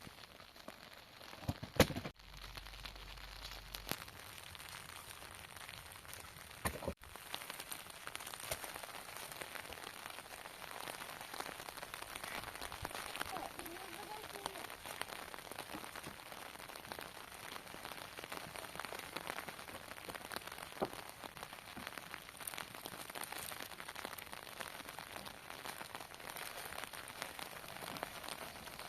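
Steady patter of rain on a surface, made of many fine ticks, with a sharp knock just before two seconds in and another near seven seconds.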